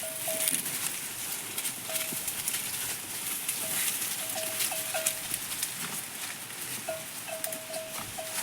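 A livestock bell clanking now and then at one pitch, single strikes and quick clusters of three or four, over a steady high hiss with scattered crackles.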